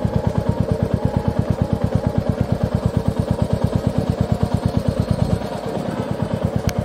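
Motorcycle engine running at low speed, a fast, even pulse of about a dozen beats a second. It eases off for about half a second past the five-second mark, then picks up again.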